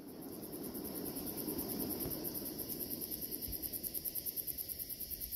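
Crickets chirping in a fast, even pulse over a low background hiss.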